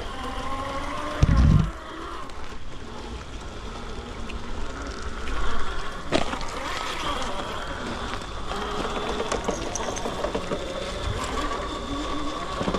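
Electric motor and drivetrain of an RC rock crawler whining, the pitch rising and falling with the throttle. A loud low thump comes about a second in and a sharp click around six seconds in.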